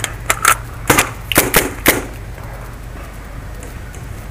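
Paintball fire at close range: about seven sharp, irregularly spaced cracks in the first two seconds, then none.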